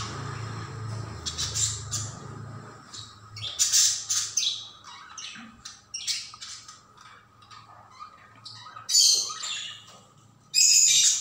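Metal spatula scraping and stirring sliced onions frying in oil in a nonstick wok, in a string of short, irregular scraping and sizzling bursts.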